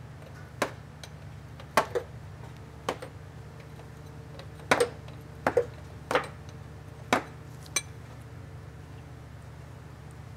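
Metal hand tools clinking and tapping against metal fittings while transmission cooler lines are disconnected: about ten sharp, irregular clinks over the first eight seconds, over a steady low hum.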